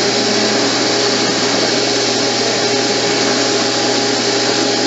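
Wall-mounted electric hand dryer blowing steadily: a constant rush of air over a steady motor hum.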